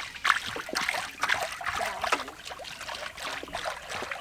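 Cooking oil pouring from a large plastic jug into a big metal wok in a continuous trickling stream, with uneven splashes.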